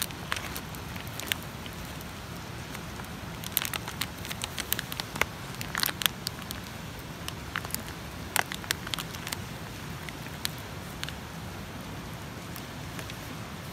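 Wood campfire crackling: irregular sharp pops and snaps, in thicker clusters a few seconds in and again near the middle, over a steady low background noise.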